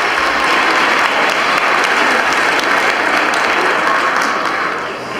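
Audience applauding, a steady mass of clapping that dies down near the end.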